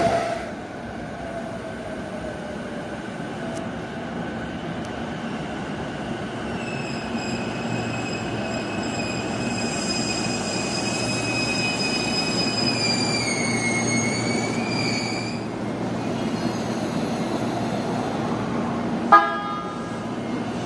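JR East E233-series Chuo Line electric train pulling into a station and braking to a stop: steady rolling noise with a high whine that dips in pitch and cuts out as the train comes to rest. One short, sharp sound comes near the end.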